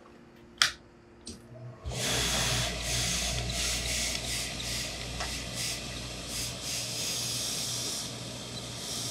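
Professional hose-fed steam iron pressing trousers: a sharp click about half a second in, then from about two seconds in a steady hiss of steam with a low hum under it.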